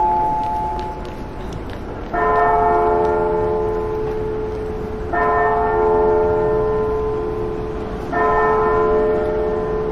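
A bell tolling: three strikes about three seconds apart, each ringing on and fading slowly until the next. The first second holds the fading ring of an earlier, higher-pitched strike.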